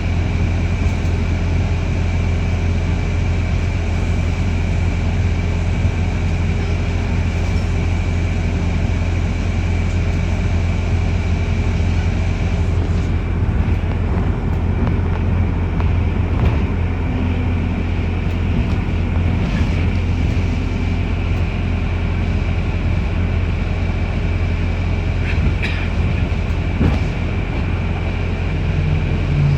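Inside a New Routemaster hybrid double-decker bus on the move, heard from the rear of the upper deck: a steady low rumble of the drivetrain and road, with a thin constant whine above it.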